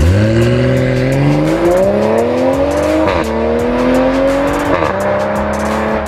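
BMW X5 40i's turbocharged inline-six, breathing through Fi Exhaust Sport 200-cell downpipes, accelerating hard from a standstill. The engine note climbs steadily and drops back at two upshifts, about three seconds in and again near five seconds.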